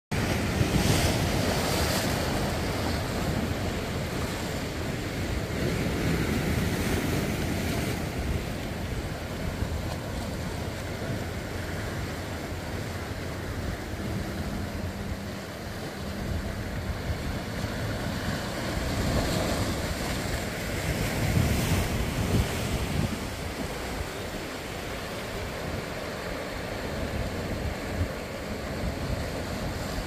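Sea waves washing in over and between boulders on a rocky shore, swelling and easing in surges, with wind buffeting the microphone.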